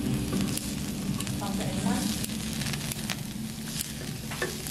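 Pork belly sizzling on a hot griddle pan, with a few light clicks of metal tongs and scissors against the meat and pan.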